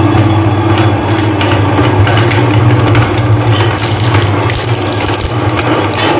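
Electric meat grinder running with a steady hum and a dense mechanical rattle as it grinds chocolate-coated ice cream cones.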